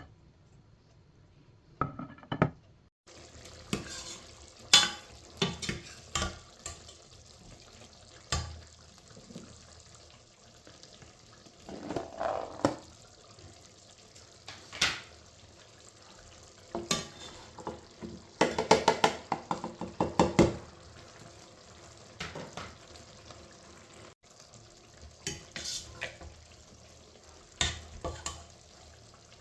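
Cooking in a pan: a utensil stirring and knocking against the pan and dishes in scattered sharp clinks, with a busier spell of clatter about two-thirds of the way in, over a steady faint sizzle.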